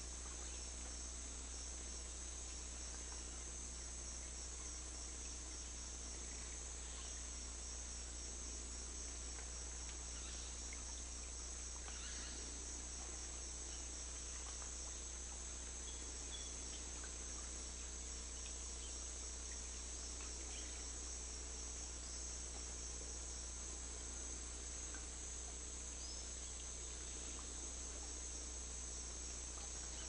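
Steady chorus of insects, crickets trilling high and unbroken, over a low steady rumble, with a few faint chirps here and there.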